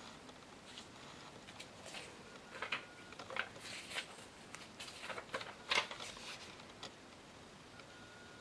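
Paper index cards being handled and swapped: a scattered run of soft rustles and light taps, loudest a little past the middle.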